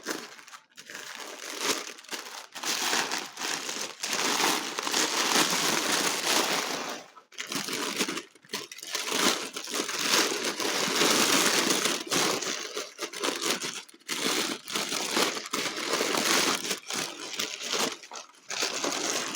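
Packing paper being crumpled and pulled away by hand to unwrap a crystal sphere, in irregular rustling bouts with short pauses.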